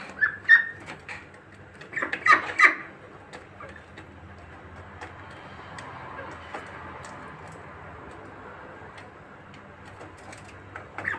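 Young poultry in a pen giving a few short high calls in the first three seconds, the loudest cluster about two to three seconds in, then only a steady background hiss with a few faint ticks.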